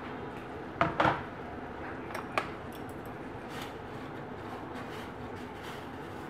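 Kitchenware clattering: two loud knocks about a second in, then lighter clicks of metal chopsticks against a stainless steel pot as the contents are stirred, over a steady background hiss.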